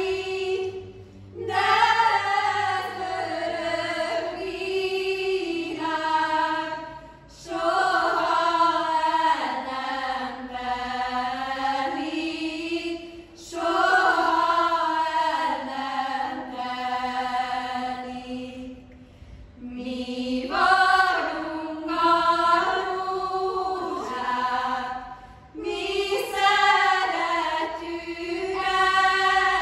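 A small group of women singing a Hungarian folk song a cappella together, in phrases of about six seconds with short breaks for breath between them.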